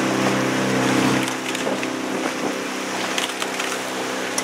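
A coaching launch's outboard motor running steadily with a low hum, easing off a little after about a second, with a few short clicks over it.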